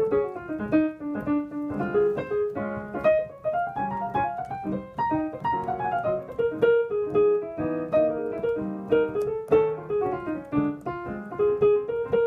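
Jazz piano improvisation: a flowing single-note melody line in the right hand over lower chords, played without a break.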